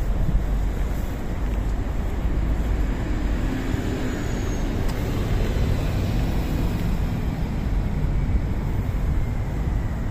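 Steady, low outdoor background noise with no distinct events.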